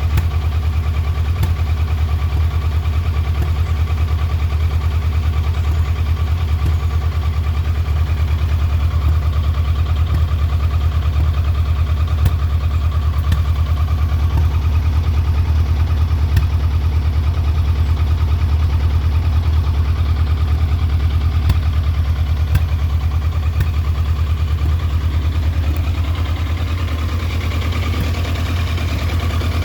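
Triumph Trophy 1200 motorcycle's inline-four engine idling roughly, a steady low note broken by occasional sharp clicks. The idle eases slightly quieter near the end.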